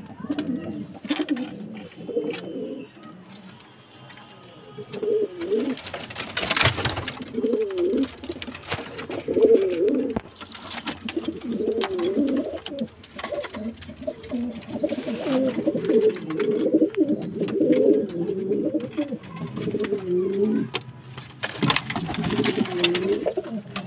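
Domestic Jammu-breed pigeons cooing in a wooden loft, their warbling coos running almost without pause and dropping off for a couple of seconds near the start. A couple of brief noises cut in, about seven seconds in and near the end.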